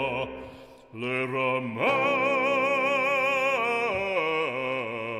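Background music of operatic singing in French with accompaniment. The sung line fades out briefly just before a second in, then comes back on a long held note with wide vibrato.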